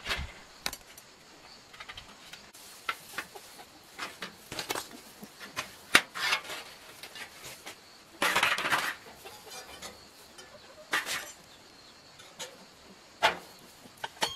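Rusty metal parts of a cassava slicer being handled and worked on: irregular clinks and knocks, with longer scraping bursts about eight and eleven seconds in.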